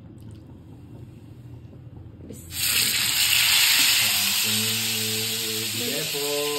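A marinated chicken leg piece laid into hot oil in a grill pan: a loud, even sizzle of frying starts suddenly about two and a half seconds in and keeps going.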